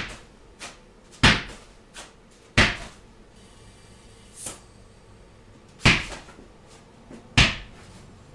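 A small lawn tractor tire bounced on a concrete floor: five sharp thuds, the first three about a second and a half apart, then after a pause two more. In the pause a short hiss of air.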